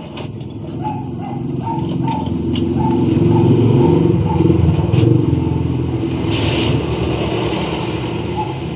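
An engine or motor running with a steady low hum that grows louder towards the middle and eases off near the end, with a few light clicks.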